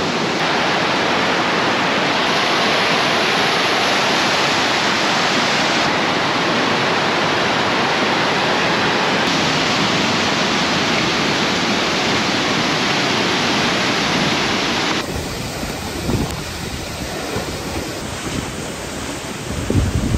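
Tall waterfall rushing: a loud, steady hiss of falling water. Its tone changes abruptly a few times, and about three-quarters of the way through it turns quieter, with wind rumbling on the microphone near the end.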